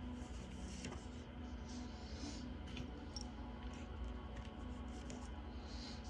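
Soft background music with a steady, gently pulsing low tone, and faint scattered small clicks.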